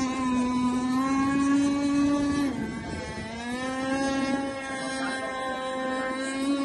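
30cc Redline two-stroke gas engine of an SD4 56 Super Boat RC speedboat running at high revs on the water as a steady high whine. About two and a half seconds in the pitch drops as the throttle comes off briefly, then climbs back and holds.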